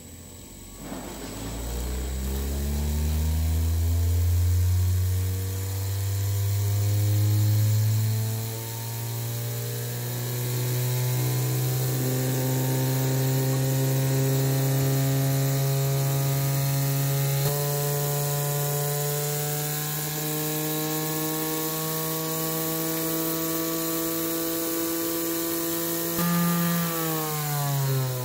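3D-printed brushless motor driven by an electronic speed controller, humming with a pitch that rises steeply as it spins up, then holds at high speed while creeping slowly higher in small steps. Near the end the power is cut and the pitch falls quickly as it spins down.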